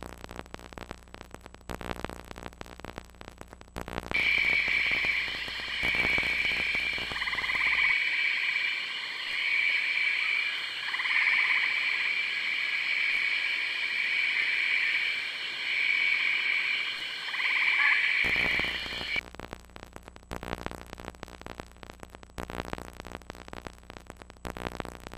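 A dense night chorus of frogs, high-pitched calls swelling and fading in waves, starts about four seconds in and cuts off near nineteen seconds. Before and after it there is a crackling, clicking noise.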